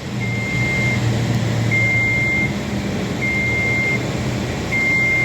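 Warning beeper on heavy construction machinery sounding a steady high beep about every second and a half, the alarm of a machine moving or reversing. Underneath it a diesel engine drones steadily.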